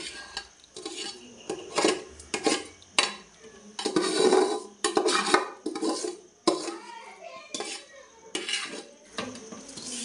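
Metal spoon scraping and clanking against a metal basin and an aluminium cooking pot as washed rice is scraped out of the basin into the pot. The sound is a series of uneven scrapes and knocks, with a longer scrape near the middle.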